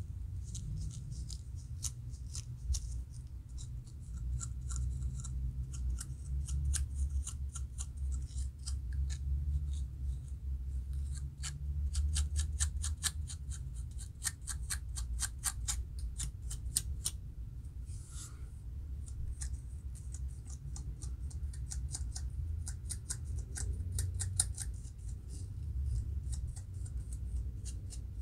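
A plastic comb's tip scratching and scraping against the scalp between locs in quick, short strokes, lifting dry flaking dandruff. The strokes come in runs and are fastest around the middle, over a low steady rumble.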